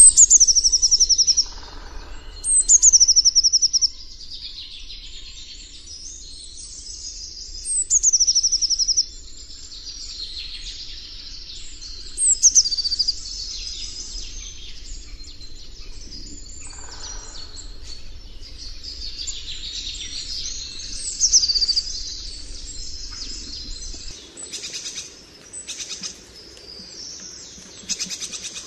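Birdsong: a songbird repeats a high phrase that starts with a quick downward sweep and runs into a fast trill, about five times, with other birds chirping between phrases. A low steady rumble sits underneath until near the end.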